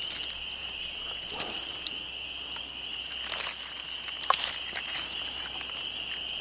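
Dry leaves rustling and crackling in short bursts as a leaf-wrapped bundle of food is handled and lifted out of a rock-lined pit oven. Under it runs a steady high-pitched buzz.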